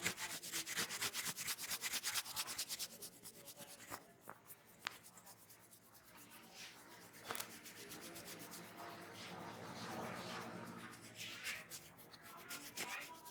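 Hands rubbing vigorously through oiled hair and over a person's scalp in a head massage. A fast run of about eight to ten strokes a second over the first three seconds or so gives way to slower rubbing, with a few sharp clicks along the way.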